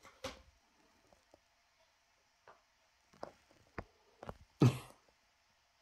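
Scattered soft taps and thumps of a Russian Blue kitten pouncing and landing on a tiled floor while chasing a wand toy's string lure, the loudest thump about three-quarters of the way through.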